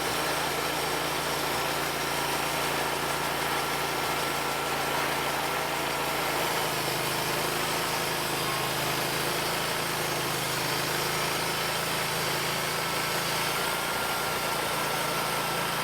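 Portable band sawmill's engine running steadily under load while the blade cuts through a log, with a thin high whine over it. The low engine note shifts about six and a half seconds in.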